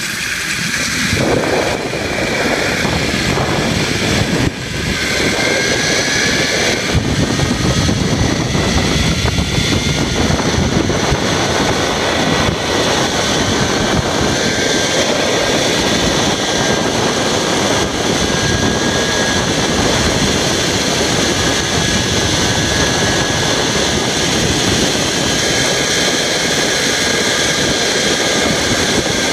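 Zip line trolley running down the steel cable: a steady whir with a thin whine that slowly rises in pitch for several seconds, then holds, over loud wind rushing on the microphone.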